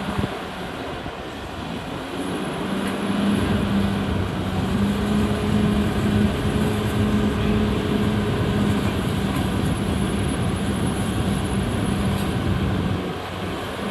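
Cat D6R XL bulldozer's diesel engine running steadily under load, growing louder about two seconds in and easing off near the end.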